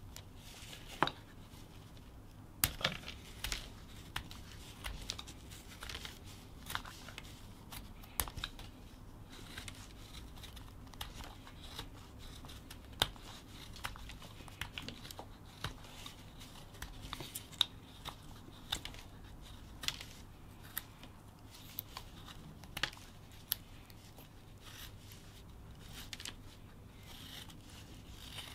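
Whittling knife slicing shavings off a small wooden block in repeated short, sharp cuts, irregularly spaced about a second apart.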